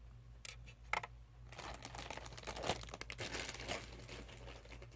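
Plastic quart-size toiletry bag crinkling as items are handled and rummaged inside it, with a couple of short clicks in the first second.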